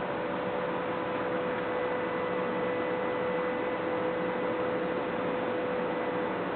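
Steady hiss with a steady hum-like tone underneath, which cuts off near the end.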